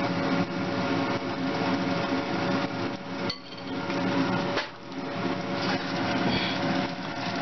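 A metal spoon tapping and scraping against a frying pan and a glass bowl of pancake batter, as repeated knocks over a steady hum.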